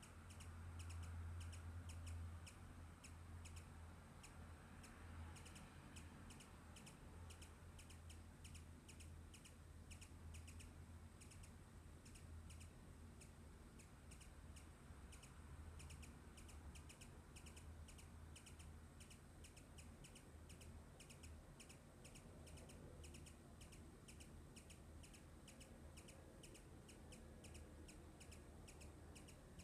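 Faint high chirps repeating evenly, about three a second, over a low steady hum.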